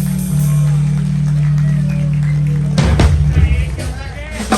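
Live rock band music: a long held low chord, then a loud hit about three seconds in, with voices after it.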